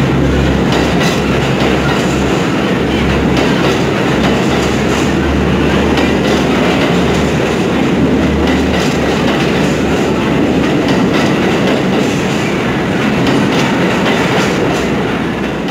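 New York City subway work train of yellow flatcars running through an underground station: a loud, continuous rumble with the rapid clatter of wheels over the rails, easing slightly near the end.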